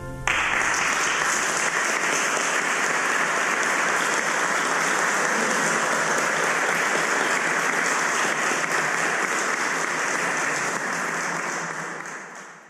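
Audience applause, steady clapping that starts as the ensemble's last held chord cuts off just after the start, then fades out near the end.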